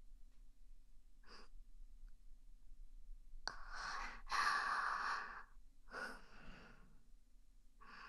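A woman's soft breaths close to the microphone: a short breath, then a drawn-in breath and a long sigh about four to five seconds in, then two more short breaths.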